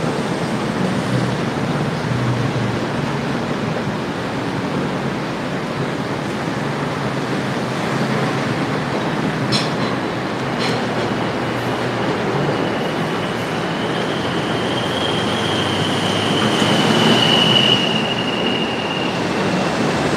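Steady loud noise of passing vehicles. A long high squeal rises in the second half, peaks and fades, and two sharp clicks come near the middle.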